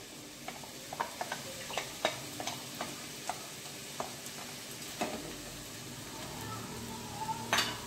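Soaked basmati rice tipped into a hot non-stick kadai of frying vegetables, sizzling, with many light scattered clicks and scrapes as the grains and bowl hit the pan. A wooden spatula then starts stirring, with a louder knock near the end.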